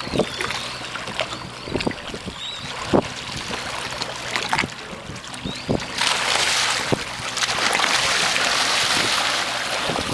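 Water lapping and knocking against a boat's hull, with wind on the microphone. About six seconds in, a louder rush of splashing comes in for a few seconds as a snorkeler kicks fins at the surface.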